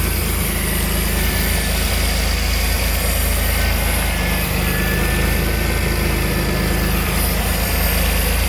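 1988 Pontiac Fiero's 2.8 L V6 idling steadily, with a faint thin high whistle over the running engine. The sound is from a vacuum leak that the owner places under or around the throttle body.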